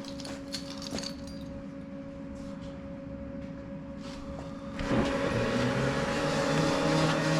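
Combo vending machine's delivery mechanism running its self-check cycle. A steady electrical hum is joined about five seconds in by a louder motor whir as the mechanism moves.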